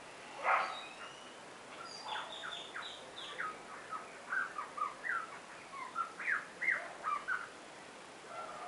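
Songbird calls: one short, harsh note about half a second in, then from about two seconds a quick run of squeaky chirps and twitters jumping up and down in pitch for around five seconds.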